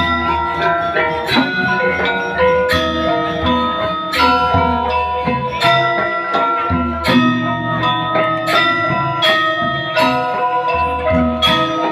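Balinese gamelan playing: bronze metallophones struck in a steady, busy pattern over low, long-ringing tones.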